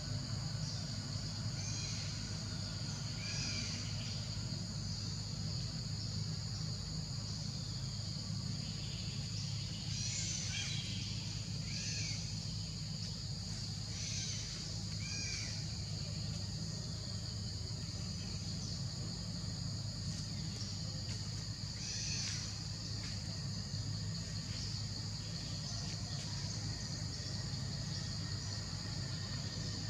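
Forest ambience: a steady high-pitched insect drone, with short animal calls now and then, several between about ten and sixteen seconds in and one again a little past twenty. A low steady hum runs underneath.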